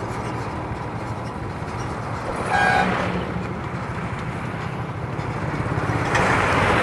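Motorcycle engine and road noise while riding, with a short vehicle horn toot about two and a half seconds in. A louder rush of road noise builds near the end.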